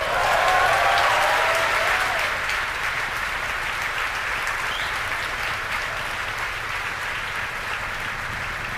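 A crowd cheering and applauding as the Falcon 9 passes max Q. It breaks out suddenly with a few shouts in the first couple of seconds, then settles into steady clapping.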